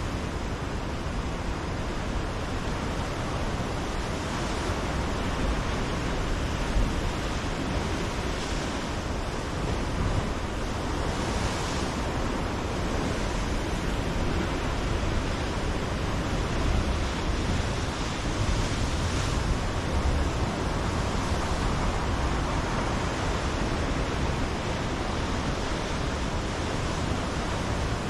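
Ocean surf breaking on a rocky lava shoreline: a steady wash of surf that swells into louder hissing surges every few seconds.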